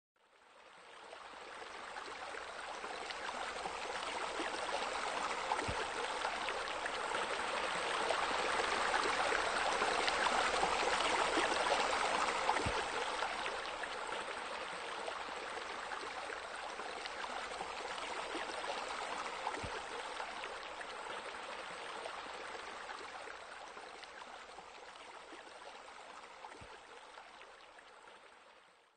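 Steady splashing of water pouring into a pool, like small spillway water features and a spa spillover, fading in, swelling about a third of the way through, then fading out. A faint tick recurs about every seven seconds.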